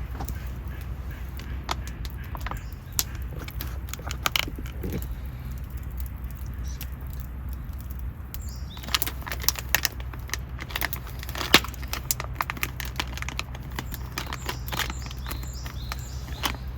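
Scattered light clicks and knocks of objects being handled, most frequent in the middle, over a steady low hum, with a few faint bird chirps.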